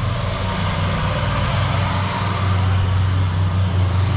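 An engine running steadily: an even low hum with a hiss of noise above it.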